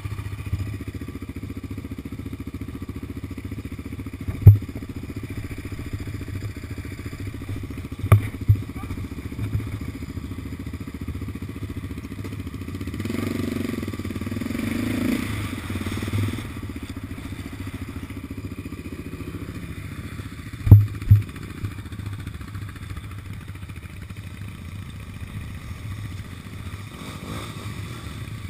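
Yamaha Raptor 700 quad's single-cylinder four-stroke engine idling with a steady throb, broken by a few sharp knocks at about four, eight and twenty-one seconds in. For a few seconds in the middle the engine noise swells louder.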